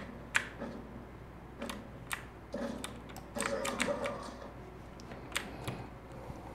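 Scattered, sharp clicks of computer keyboard keys and K World Gaming Orion M1 mouse buttons being pressed at irregular intervals during gameplay.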